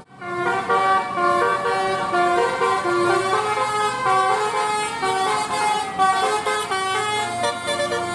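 A bus's multi-tone telolet basuri air horn playing a tune of short stepped notes, about two or three notes a second.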